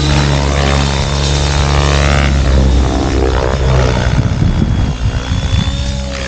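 Electric RC helicopter's rotor and motor running in flight, a steady buzzing drone whose pitch shifts slightly as it manoeuvres, turning choppy and fluttering about four to six seconds in.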